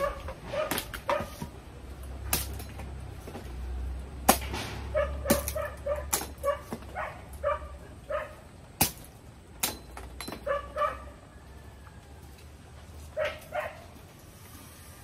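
A dog barking again and again in short barks, mixed with sharp wooden knocks and clacks as dry coconut-frond stalks and sticks are handled on the pile.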